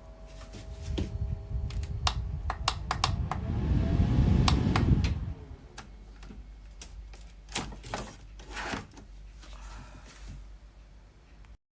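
Handling noise from a small plastic desk fan: a run of sharp clicks and knocks, with a low rumble that builds about a second in and falls away after about five seconds. The sound cuts off abruptly just before the end.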